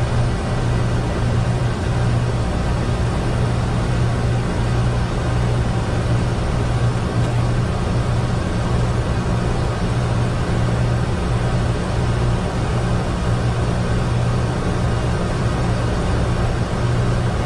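Steady flight-deck noise of a Boeing 747-200 in the climb: a continuous rush of airflow and engine noise over a steady low hum.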